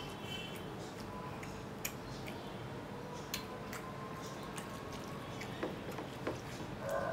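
A person eating rice and mutton by hand: a few scattered small clicks and smacks of chewing and of fingers on the plate, over steady background noise.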